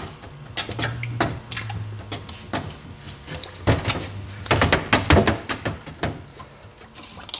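Scattered clicks and knocks of a plastic fluid jug and funnel being handled on a steel workbench while a torque converter is filled with ATF+4, with a cluster of heavier knocks about four to five seconds in as the jug is set down; a low steady hum underneath.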